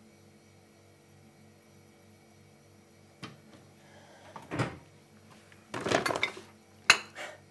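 Quiet room tone for about three seconds. Then someone rummages through a shopping bag holding cans and plastic yogurt pots: a click, bag rustling, and containers knocking, with one sharp clack near the end as the loudest sound.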